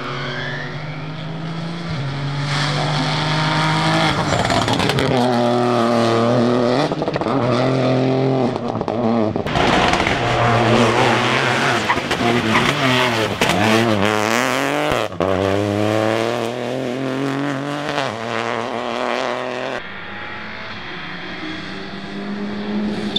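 Rally cars driven hard one after another. The engines rev up and drop back repeatedly through gear changes as they pass, with a steep fall and rise in pitch about halfway through.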